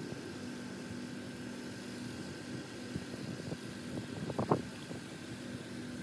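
Pressure washer running with a steady drone, with a short clatter of knocks about four and a half seconds in.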